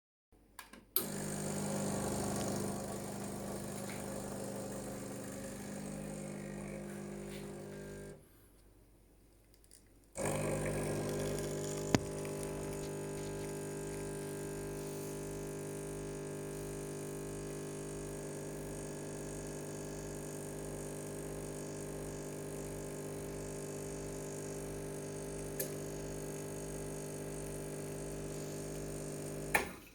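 Coffee machine's pump running with a steady buzzing hum after a click. It stops for about two seconds and then runs again for about nineteen seconds before cutting off near the end.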